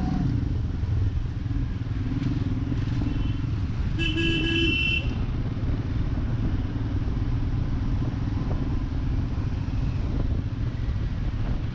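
Motorcycle engine running steadily while riding, with a vehicle horn honking once for about a second, about four seconds in.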